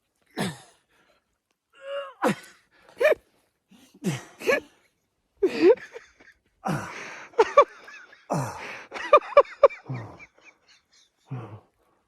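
A person's short gasps and grunts, repeated many times in separate bursts.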